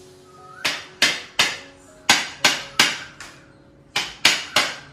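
Nine sharp knocks on an upturned bowl, in three quick groups of three, each ringing briefly. The bowl is being tapped to release a portion of biryani pressed into it and turned out onto a plate.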